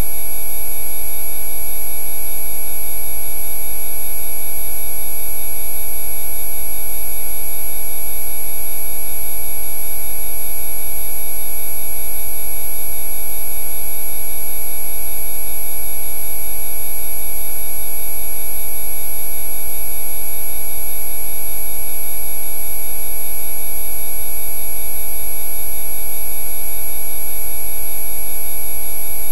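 Rife frequency audio: many steady electronic pure tones sounding together with a low hum underneath, loud and unchanging throughout.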